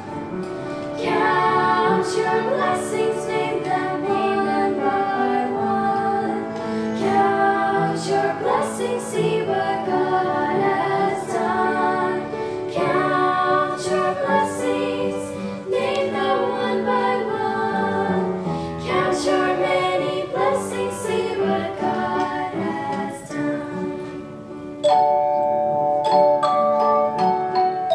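A small group of girls and children singing a Christian song together. About three seconds before the end, handbells ring out in sustained chords.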